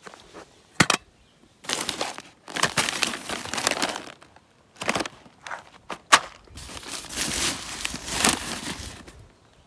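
Freeze-dried meal pouches crinkling and rustling in irregular bursts as they are handled and shuffled inside an open backpack, with two sharp clicks about a second in and about six seconds in.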